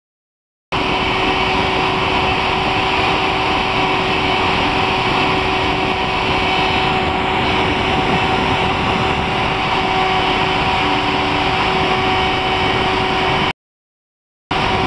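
Hobby CNC machine's spindle running steadily with a high whine while it engraves a brass plate. The sound cuts off suddenly near the end and comes back for a moment just before the close.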